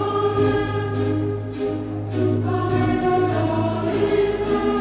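Slow choral music: a choir holding sustained chords that shift about once a second, over a steady low drone.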